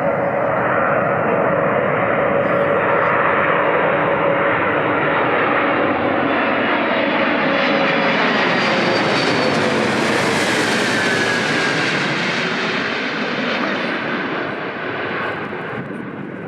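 Antonov An-124-100M's four D-18T turbofan engines as the jet comes in to land and passes by: loud, steady jet engine noise that is fullest and sharpest about ten seconds in, with whining tones falling in pitch as it goes past, then fading near the end.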